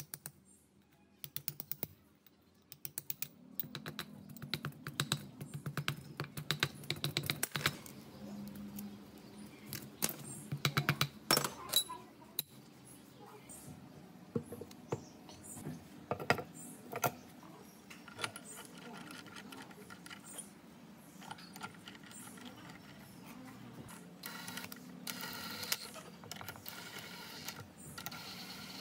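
Hand-tool work on a truck differential: runs of rapid, evenly spaced clicking and scattered sharp metal taps and knocks.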